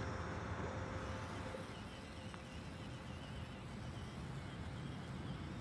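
Traxxas TRX-4M micro RC crawler's small electric motor and drivetrain whining as it drives over dirt, fading out after about a second and a half. Quieter outdoor ambience follows, with a faint high warbling call.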